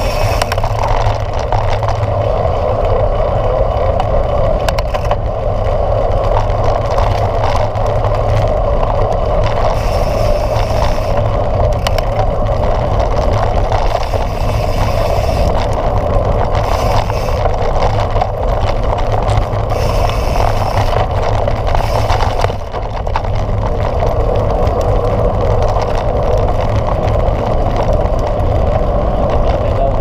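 Mountain bike rolling along a dirt trail, heard from a handlebar-mounted camera: a steady loud rush of tyre and wind noise over a low rumble, with scattered knocks from bumps in the trail.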